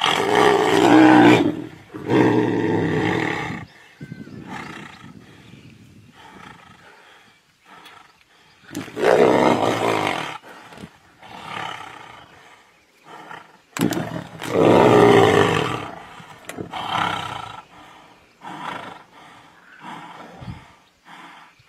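Tigers growling and roaring while they grapple, in loud bouts of a second or two. The loudest come at the start and again about nine and fourteen seconds in, with quieter growls between.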